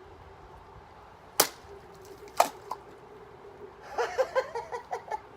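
Freshly sharpened katana cutting through a target: two sharp cracks about a second apart, the second followed by a fainter knock, then a quick run of short pitched pulses near the end.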